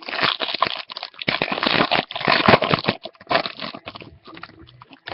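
Trading-card pack wrapper being torn open and crinkled: a dense crackle for about three seconds, then a few lighter rustles and clicks.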